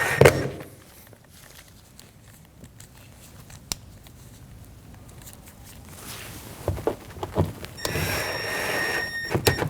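A power driver spinning screws into a plastic car door trim panel: a brief run at the start and another lasting about a second and a half near the end. Light handling clicks and knocks come in between.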